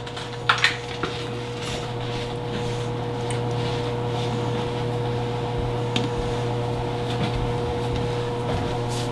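Steady hum of a running kitchen appliance, with a few light clinks of a utensil against a stainless steel pot about half a second in.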